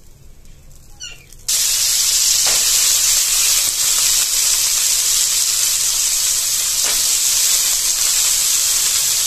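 Boiled kabuli chana (chickpeas) put into hot oil in a kadai, setting off a loud, steady sizzle that starts suddenly about a second and a half in.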